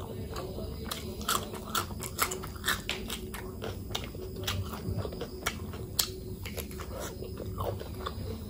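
Close-miked chewing and biting of a person eating, with many short, irregular mouth clicks throughout.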